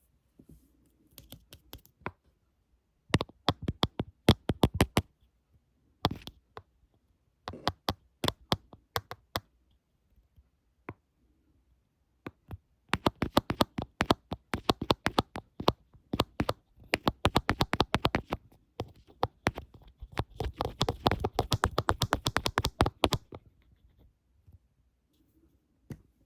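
Fingernails tapping rapidly on a screen in bursts of quick, dry clicks with short pauses between them, then a long dense run of tapping that turns into scratching near the end.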